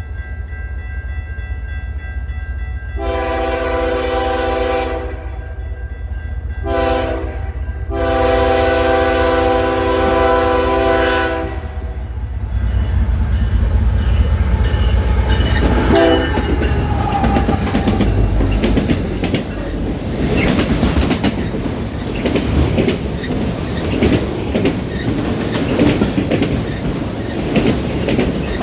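Canadian National train's air horn sounding three blasts, a long one, a short one and a long one, ending about twelve seconds in. The train then passes with a steady low rumble and rapid clicking of wheels over the rail joints.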